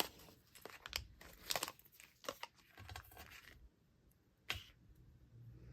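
Plastic stamp sheets and label stickers being handled and peeled: irregular crinkling, tearing-like rustles and sharp clicks, dying down after about three and a half seconds, with one last sharp click near the end.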